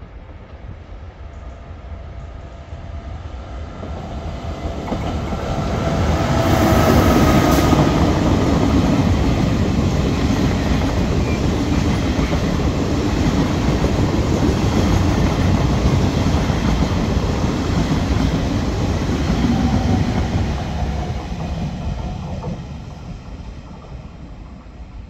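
Regional passenger train pushed by an electric locomotive at its rear passes on the line below. Its wheels clatter over the rail joints in a steady rush that builds over the first six seconds and fades away near the end, with a brief high hiss about seven seconds in.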